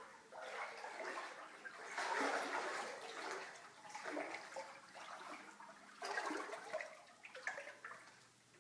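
Floodwater rushing and sloshing in irregular surges that swell and fade several times.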